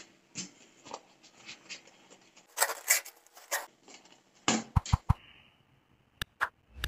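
Handling of a small zippered hard-shell carrying case as it is closed: soft ticks and rustles, a louder rasping stretch in the middle, then several sharp clicks in the last few seconds.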